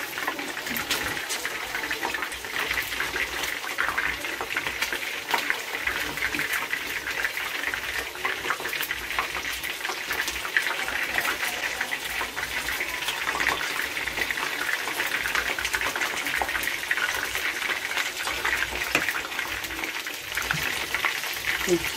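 Coated chicken drumsticks frying in hot oil in a pan, a steady sizzle with many small crackles, as the pieces are turned with chopsticks.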